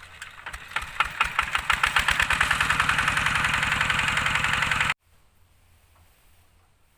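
Single-cylinder diesel engine of a two-wheel walking tractor starting up, its regular beats quickening over the first couple of seconds and settling into a steady fast run. The sound breaks off abruptly about five seconds in.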